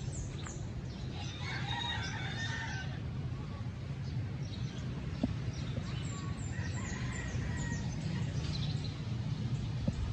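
A rooster crowing, loudest about a second in, with weaker calls later, over a steady low hum.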